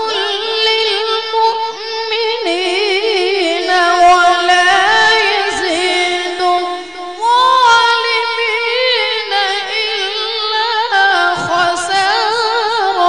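A boy reciting the Quran in a melodic, drawn-out style, holding long ornamented notes that waver in pitch, with a short breath break about seven seconds in.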